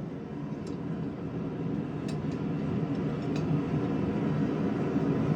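A blacksmith's forge running with a steady low rumble that slowly grows louder, with a few faint metallic ticks.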